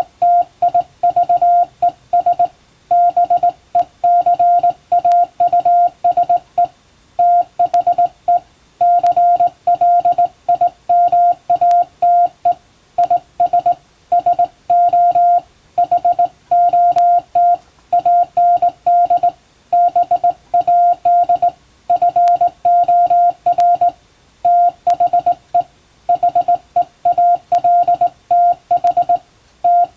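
Morse code sent by hand on a straight telegraph key: a steady mid-pitched beep keyed on and off in quick dots and dashes, with short pauses between letters and words.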